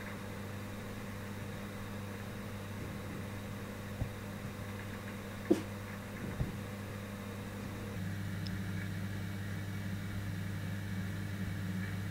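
Steady low electrical hum that grows a little louder about eight seconds in, with a single short knock about five and a half seconds in.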